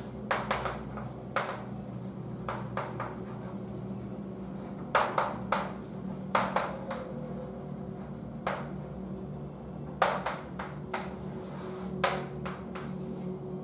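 Chalk writing on a blackboard: irregular sharp taps and short strokes of the chalk as words are written, over a steady low hum.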